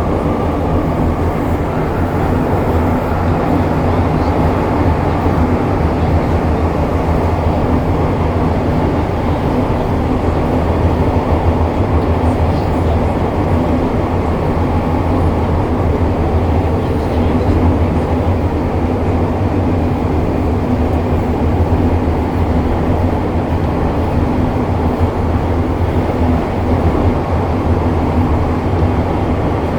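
MTR Kwun Tong Line M-Train running between stations, a steady loud rumble of wheels and motors.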